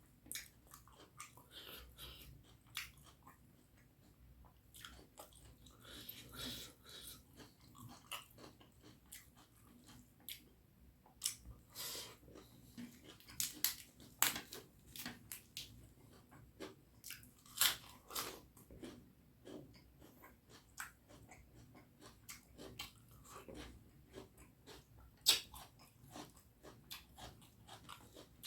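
Close-up chewing of a mouthful of curry and rice, a run of irregular wet mouth clicks with a few louder ones.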